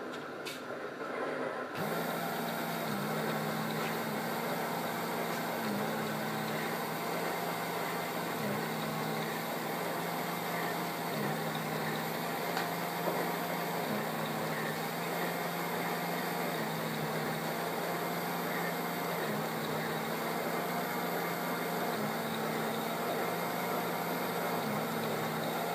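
Atlas O-gauge turntable's motor running as the bridge rotates: a steady hum that starts about two seconds in, with a small regular catch about every three seconds.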